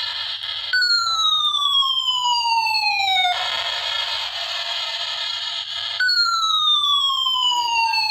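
Electronic siren sound effect from a battery-powered toy gun. A harsh buzzing tone alternates with a long falling tone, about every two and a half seconds, twice over.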